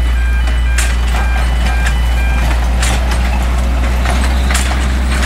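Small narrow-gauge railway locomotive passing with its carriages, under a steady low rumble, with a few sharp clacks of the wheels. A tune of short beeping tones plays for the first two seconds or so, then stops.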